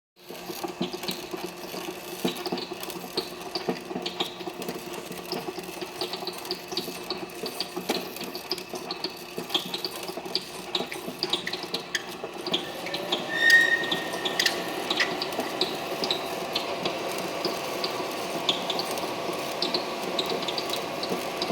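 Plastic-bag packaging machine running: a steady hum under a continuous clatter of rapid, irregular clicks. A brief high tone sounds about halfway through.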